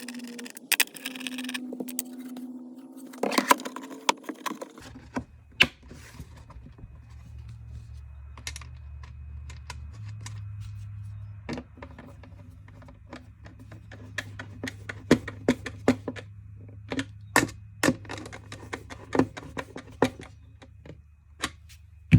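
Irregular clicks and knocks of small metal hardware and plastic parts being handled and fastened, with a steady low hum starting about five seconds in.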